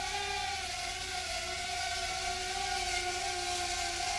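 WLToys Q242 mini quadcopter's motors and propellers whining in flight, a steady buzz whose pitch wavers slightly as the throttle shifts.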